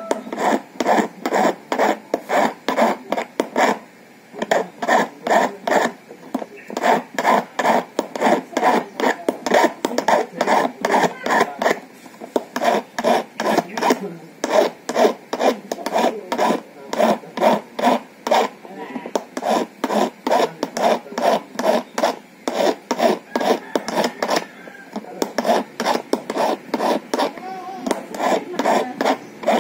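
Hand file rasping across a metal key blank in steady back-and-forth strokes, with a few brief pauses: a new key being cut by hand.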